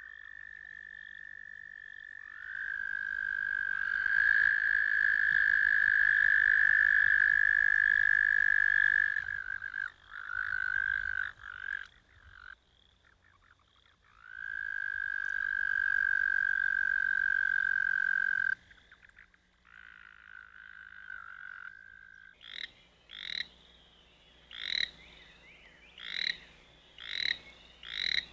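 American toads trilling: long, steady, high trills lasting several seconds each, the male's breeding call. Near the end come short, sharp calls repeated about once a second.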